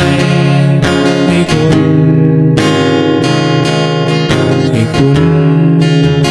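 Instrumental passage of a song, led by strummed acoustic guitar, with no vocals.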